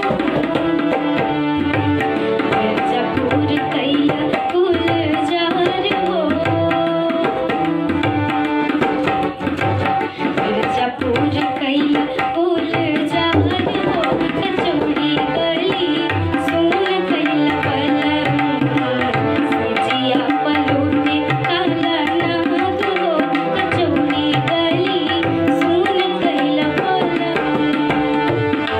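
Instrumental passage of a Bhojpuri folk song: tabla playing a steady rhythm under held and moving melodic notes.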